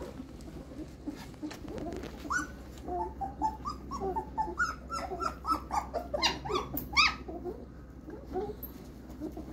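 A 15-day-old German Shepherd puppy whimpering in a rapid string of short, high squeals and whines. They start about two seconds in and stop about seven seconds in, the loudest near the end. A steady low hum runs underneath.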